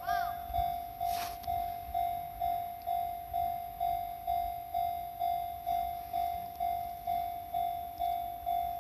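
Japanese railway level crossing's electronic warning bell ringing, a single-pitched ding repeating evenly about twice a second, each strike fading away before the next: the crossing is active for an approaching train. A brief sharp noise cuts in about a second in.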